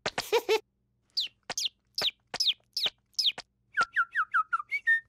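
Cartoon bird-call sound effects: a few short clicks and brief chirpy calls, then six quick whistles, each falling in pitch and set off by a click. Near the end comes a fast run of lower, shorter falling chirps.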